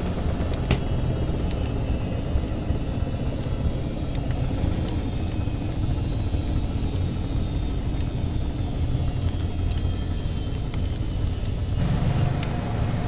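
Washing machine running with a steady low rumble, with sparse crackles of a wood fire over it. The machine's sound shifts slightly near the end.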